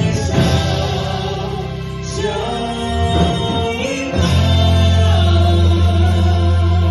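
Regional band music playing with group singing over electric bass; from about four seconds in, a loud low bass note is held.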